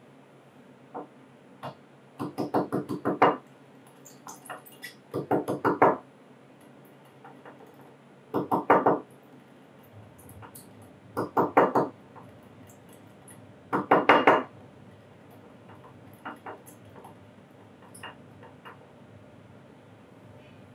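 A bar muddler pounding a small piece of brown sugar in a cut-crystal rocks glass with bitters, syrup and soda, crushing it to dissolve. There are five short bursts of rapid knocks on the glass bottom, about three seconds apart, then only a few faint taps.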